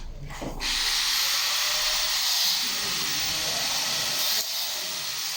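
A steady hissing noise that starts suddenly about half a second in, with a brief dip near the end.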